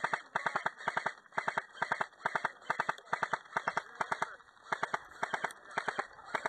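Quick footsteps pushing through tall dry grass: a steady run of crunching, crackling steps, about two or three a second.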